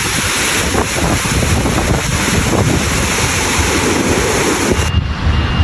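Floodwater rushing and splashing as vehicles wade through a flooded street, a steady loud wash with a low rumble, mixed with wind buffeting the microphone. The high hiss drops away suddenly near the end.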